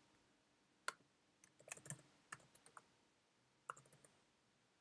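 Faint, scattered keystrokes on a computer keyboard as a word is typed: a single tap about a second in, a quick run of taps around two seconds, and a couple more near the end.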